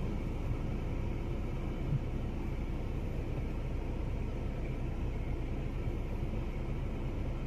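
Steady low rumble and hiss of outdoor background noise, with a faint knock about two seconds in.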